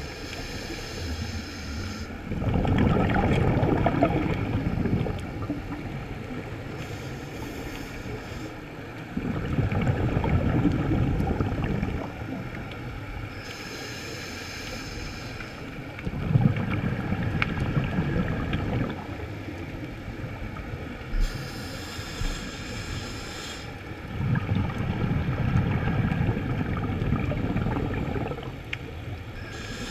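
A scuba diver breathing through a regulator: a short hissing inhale, then a louder gush of exhaled bubbles, repeating about every seven seconds.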